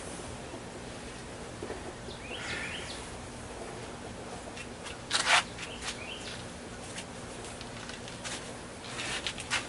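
Steady outdoor background noise with a faint low hum, a short bird chirp about two seconds in, and scattered small clicks and knocks of hands handling tools and materials, the loudest about five seconds in.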